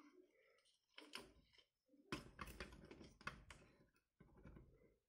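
Faint clicks and taps of a large plastic action-figure mech being handled and stood on a glass tabletop: one click about a second in, then a quick run of taps for about a second and a half.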